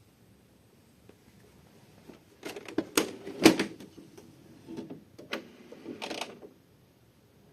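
HP 6122e printer's mechanism clattering: a run of clicks, clacks and rattles lasting about four seconds, starting about two seconds in, with one sharp clack loudest near the middle.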